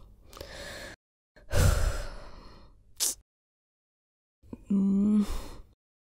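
A person sighing heavily: one long breathy exhale of about a second and a half that fades out, an impatient sigh while waiting. Near the end comes a short hummed voice sound.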